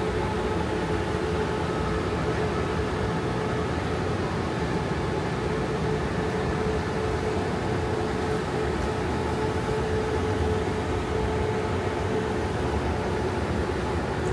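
Steady supermarket background hum from refrigerated cabinets and ventilation, with a steady mid-pitched tone over it and no distinct events.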